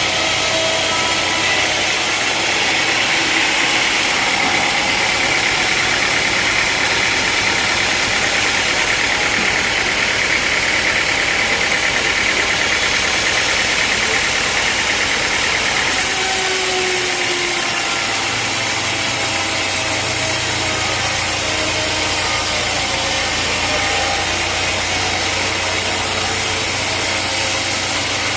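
Sawmill engine running steadily, its sound shifting slightly about two-thirds of the way through.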